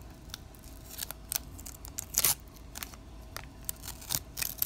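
Wax-paper pack wrapper crinkling and paper being peeled off the back of a baseball card it has stuck to, in short crisp rustles and crackles, loudest about two seconds in.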